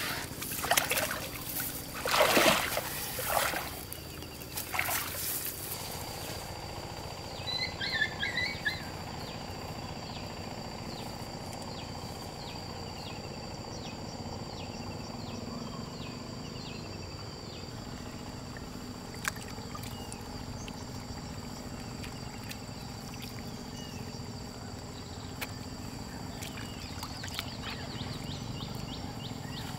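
Water splashing and sloshing in several loud bursts for the first six seconds or so, then a steady quiet outdoor background with a brief high chirp about eight seconds in.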